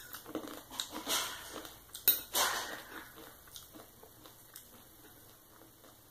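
Metal fork and knife clinking and scraping against a ceramic plate while cutting and picking up pieces of sausage. A few sharper clinks come about one to two and a half seconds in, then only faint taps.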